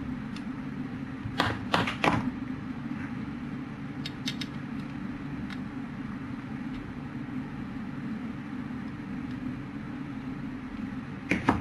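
Steady low hum with a few sharp clicks and taps from tools against the circuit board during soldering: three close together about one and a half to two seconds in, fainter ticks a few seconds later, and another click near the end.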